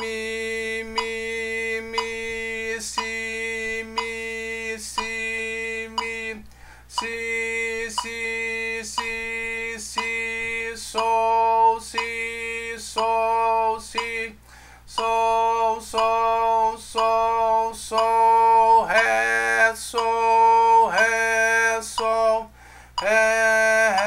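A man's voice chanting note names in strict rhythm, one held syllable per beat, about once a second, mostly on a single pitch. This is a metric reading of a beginner guitar exercise, naming each note in time.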